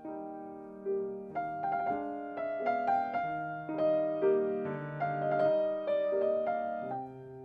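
Solo piano playing a slow, gentle instrumental Christmas melody over sustained chords, with a new note or chord about every half second.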